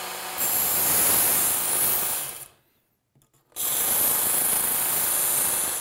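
A Work Sharp Ken Onion Edition belt sharpener runs at slow belt speed while a Buck Vanguard's steel blade is dragged across the abrasive belt in two grinding passes of about two seconds each, with a break between them. The passes are grinding off a damaged edge to put a new one on.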